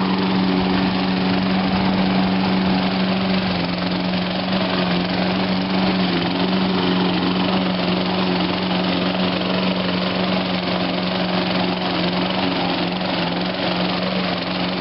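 Toro Recycler lawn mower's 6.5 hp Tecumseh single-cylinder engine running steadily while cutting grass, its pitch dipping slightly a few seconds in.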